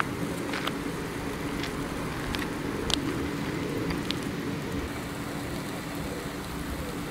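Chicken skewers sizzling over charcoal on a disposable foil barbecue, with a few sharp crackles and pops scattered through, over a steady low hum.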